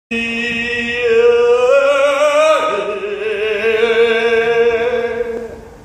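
A man singing long held vowel notes with vibrato in improvised primal singing (Canto Primal). The pitch dips briefly about two and a half seconds in, then he holds the note again and fades out near the end.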